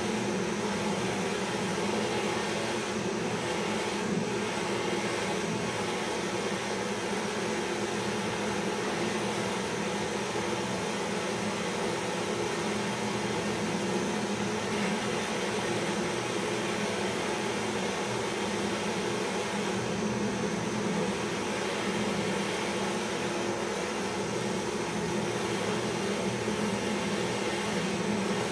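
Handheld butane gas torch burning steadily against a small traditional popcorn machine: a continuous, even hiss with no breaks.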